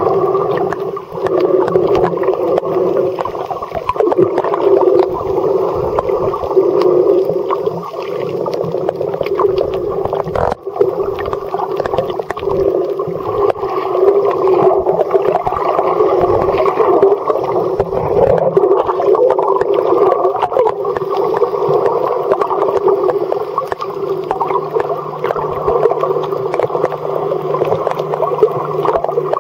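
Underwater sound picked up by a camera held just beneath the sea surface: a loud, muffled, steady rush of water with many small crackles. A low steady hum comes in near the end.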